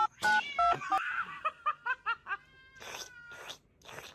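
Two-tone electronic beeps in the first second, then a cat making a quick run of short, high chirping meows, followed by a few breathy puffs.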